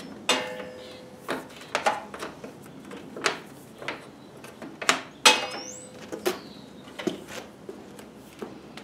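Irregular clicks and knocks of a table saw's power cord and plastic cable clamp being handled and unwound, roughly one every half second to second, some with a brief ring.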